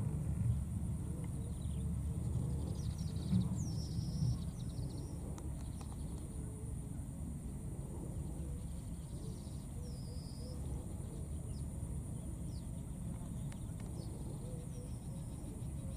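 Outdoor ambience: a steady low rumble with a constant thin high-pitched hum over it, and a few short high chirps, about four seconds in, again near ten seconds and near fifteen seconds.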